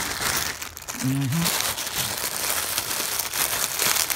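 Clear plastic wrapping crinkling and rustling as hands handle a packaged item taken from a cardboard box, with many small crackles throughout. A brief muffled hum from a person about a second in.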